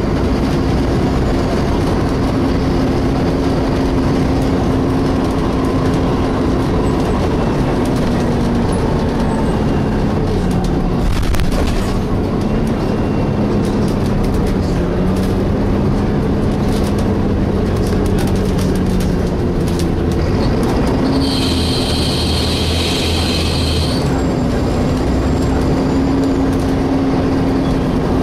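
Volvo B7TL double-decker bus heard from inside, its engine and cooling fan droning steadily, the pitch sagging through the middle and rising again, with loose rattles from the body. Near the end a high-pitched screech sounds for about three seconds.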